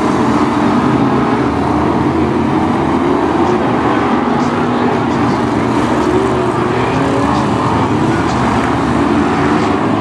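Several BriSCA F1 stock cars' V8 engines running together, their pitch rising and falling unevenly as the cars circulate the oval.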